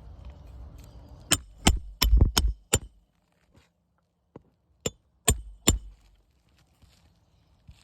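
Hammer striking a roof snake to drive roofing nails back under an asphalt shingle tab: five sharp blows in quick succession about a second in, then three more after a short pause.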